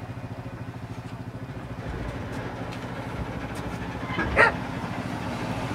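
ATV engine running with a steady low putter, and a dog barking once, loudly, about four seconds in.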